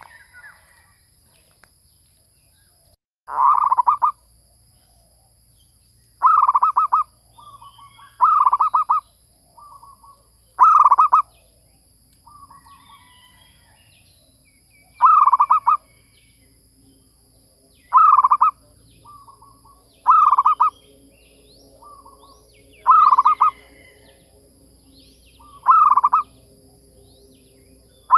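Zebra dove cooing: about nine loud phrases, each a quick run of rapid staccato notes, repeated every two to three seconds, several followed by a few softer notes.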